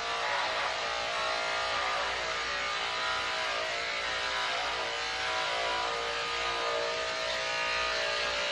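Electric dog grooming clippers running with a steady buzzing hum as they shave a border collie's thick coat short.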